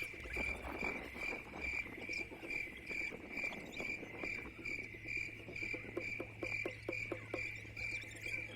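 A chirping insect calling steadily, one high chirp about two and a half times a second, over a faint low hum with scattered light clicks.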